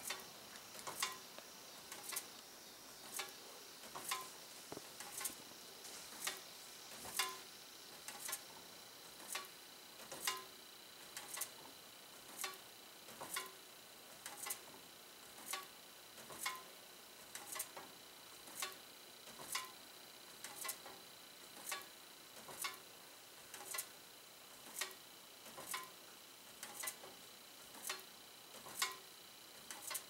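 Box fan blades ticking as each one brushes a foil-covered paper tag, about once a second in an even rhythm; each brush closes the circuit that flashes the bulb. A faint steady high whine runs underneath.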